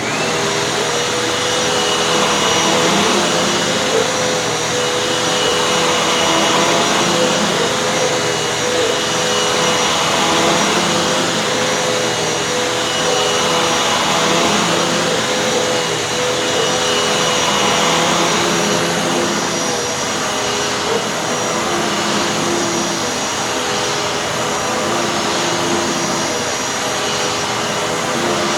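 Dirt Devil Featherlite upright vacuum cleaner comes on at the start and runs with a steady motor whine and rushing airflow while it is pushed back and forth over carpet, the sound swelling and fading about every four seconds with each stroke.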